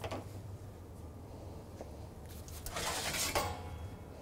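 Metal kitchenware clattering for about a second, two to three seconds in: a metal baking tray being handled and taken from the oven. A short click comes right at the start, and a steady low hum runs underneath.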